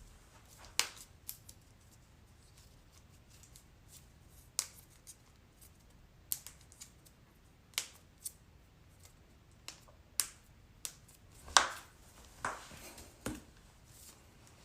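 Human joints cracking: a string of about fifteen sharp pops and cracks at uneven intervals, the loudest about twelve seconds in.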